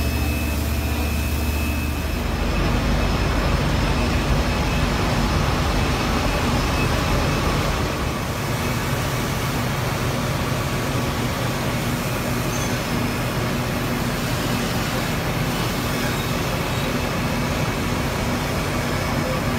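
An engine running steadily under a constant hiss.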